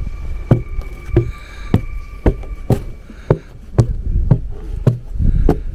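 A hand tool chopping at lake ice in sharp, evenly spaced strikes, about two a second. The ice sounds hollow, a sign of an air gap or a second layer of ice beneath the surface layer.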